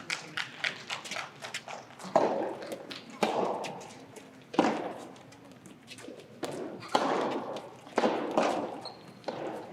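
Soft tennis rubber balls knocking off rackets and the court in a large gymnasium: a quick string of sharp knocks in the first couple of seconds, then scattered knocks among several short bursts of voices echoing in the hall.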